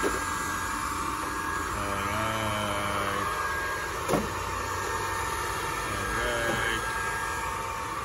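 Midea MR02 robot vacuum cleaner running: a steady whirr from its suction motor and brushes, with one sharp knock about four seconds in.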